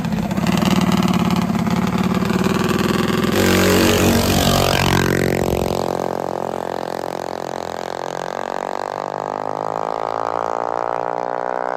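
Small minibike engine running hard. About five seconds in, its pitch drops sharply, and then it climbs steadily as the bike accelerates.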